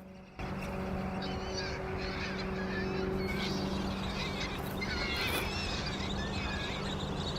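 A large flock of American avocets calling, many short high calls overlapping one another over a steady low hum. The sound starts suddenly about half a second in.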